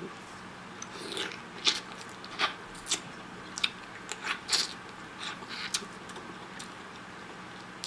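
Close-miked mukbang eating sounds from sauce-coated seafood: wet bites, smacking and slurping, in about a dozen sharp, irregular bursts.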